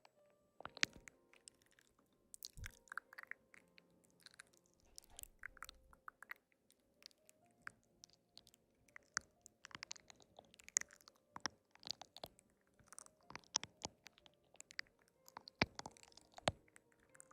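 A person chewing and biting crisp food close to the microphone: a quick, irregular run of sharp crunches throughout, over faint background music.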